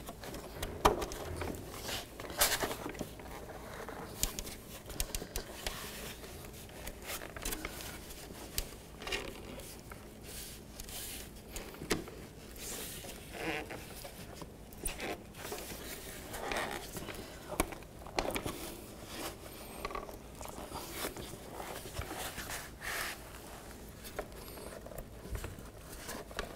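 Plastic grille being worked into a plastic bumper cover by hand: scattered light scrapes and clicks of plastic on plastic, with a few sharper ticks, as it is lined up and pressed down to seat its clips.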